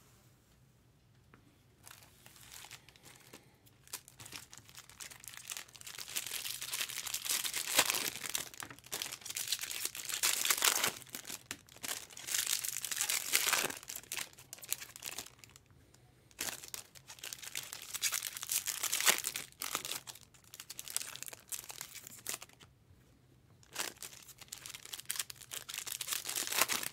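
Trading-card pack wrappers being torn open and crinkled, in repeated bursts separated by short pauses.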